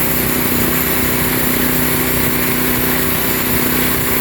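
Sawmill engine running at a steady pitch between cuts, while the saw head is lowered to the next board setting before feeding into the log.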